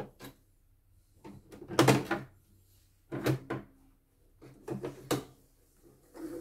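Plastic clicks and clatter of an embroidery hoop being unlatched and pulled off the carriage arm of a CNY E900 embroidery machine. The sound comes in several separate bursts, the loudest about two seconds in.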